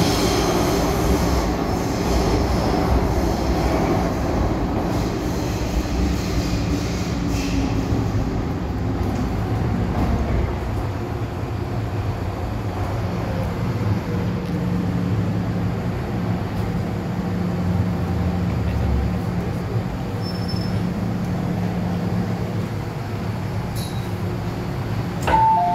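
MTR M-Train heard from inside the car as it runs and brakes into a station. The traction motor whine falls steadily in pitch over wheel and rail rumble, then the train stands humming. A two-tone door chime starts right at the end.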